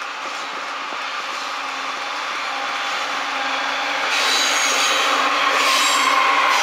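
Norfolk Southern diesel locomotives at the head of a stone train approach and pass, their engines growing steadily louder. About four seconds in the lead units come by close and the sound jumps louder and sharper.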